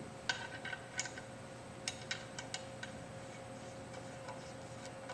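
Light metallic clicks and taps, about a dozen in the first three seconds and fewer after, as the base of a pyramid rivet die is slid into the hole of a hand press machine.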